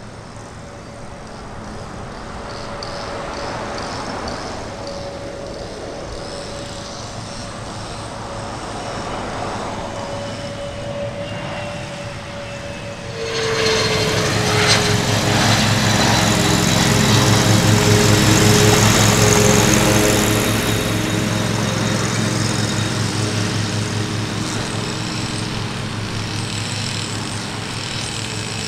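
A Bombardier Challenger business jet, built on the CRJ airframe, comes in to land with its two rear-mounted turbofans whining steadily. About halfway through it suddenly grows much louder as it passes close by, and its whine drops in pitch. The sound then slowly fades as it flares over the runway.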